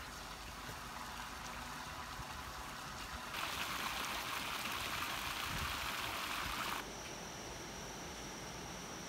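Fountain water splashing into a pool, an even rush of falling water that starts suddenly about three seconds in and cuts off about seven seconds in. Around it is a softer steady outdoor hiss, and after the cut a thin, steady high tone joins it.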